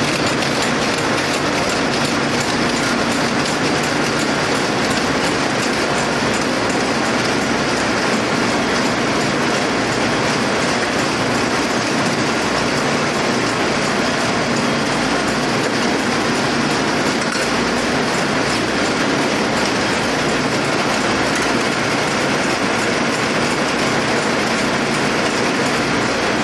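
Bank of yarn winding machines running on a factory floor: a loud, steady mechanical clatter with fast fine ticking throughout.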